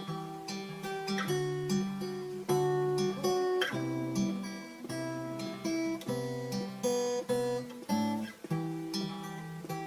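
Music: an acoustic guitar strumming and picking a chord progression, with no singing.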